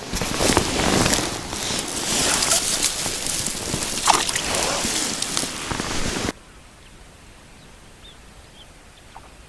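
Water sloshing and splashing with rough handling noise, cutting off abruptly about six seconds in to a faint, quiet background.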